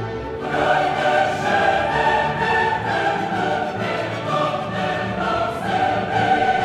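Classical choral music: a choir singing long held notes over an orchestra, swelling in just after the start.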